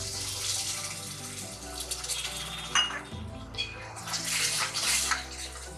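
A little water poured into hot masala frying in oil in a metal pot, hissing and sizzling, with a metal spoon stirring it. The hiss comes in two spells, at the start and again about four seconds in.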